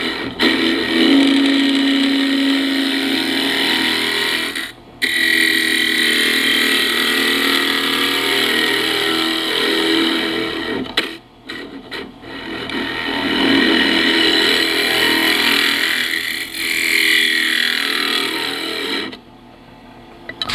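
Turning tool cutting ash on a spinning wood lathe, hollowing a cup as thin as it can be at the rim: a loud, steady cutting noise whose pitch shifts as the tool moves. It breaks off for a few brief moments as the tool is eased off, and stops near the end when the tool is lifted away.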